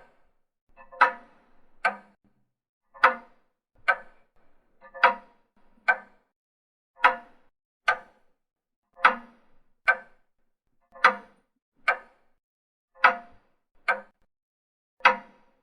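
Clock ticking in a steady tick-tock, about one stroke a second, the strokes alternating louder and softer.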